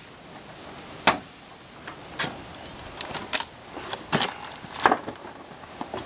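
Irregular clicks and knocks of a Carrier/Bryant A-frame evaporator coil's plastic drain pan being pushed and lined up back onto the coil by hand. The sharpest knocks come roughly a second apart, with smaller taps between.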